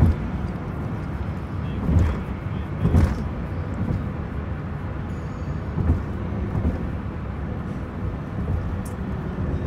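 Steady low rumble of a car in motion, heard from inside the cabin, with a few brief louder bumps.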